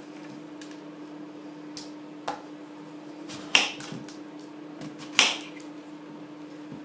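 Kitchen knife cutting through apples, quartering them on a hard countertop: a few sharp knocks as the blade goes through and strikes the counter, two of them louder about three and a half and five seconds in, over a steady low hum.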